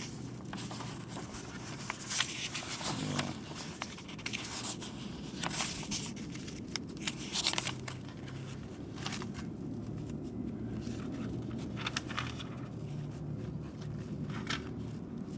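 Sheets of paper rustling as a stack of pages is handled and turned, in short irregular spells, over a steady low background hum.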